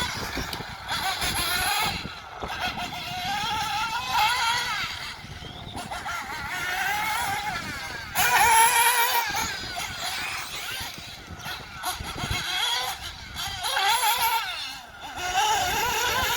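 Tekno NB48 2.0 1/8-scale nitro buggy's two-stroke glow engine revving up and down as it is driven around the track. Its high-pitched note keeps rising and falling with short drops off the throttle, and is loudest about halfway through.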